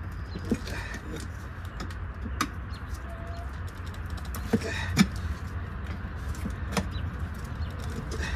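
Hand tools knocking and clicking against an ATV tire and wheel: scattered sharp knocks, the loudest about five seconds in, over a steady low rumble.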